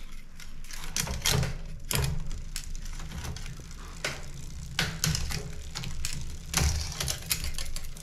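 Bicycle drivetrain turned by hand: the chain runs over the triple chainrings with many irregular clicks and rattles over a low rumble, as the front derailleur's freshly tightened cable is checked.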